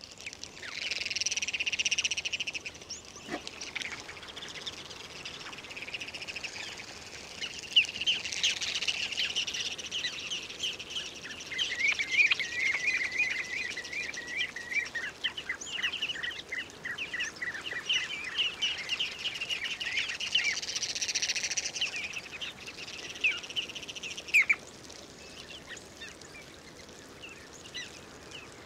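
A mixed flock of shorebirds calling: a dense chatter of short, rapid, high-pitched notes that thins out over the last few seconds.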